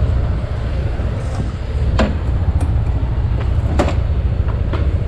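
Motorcycle under way: a steady, loud low rumble of engine and wind on the microphone, with two sharp clicks about two and four seconds in.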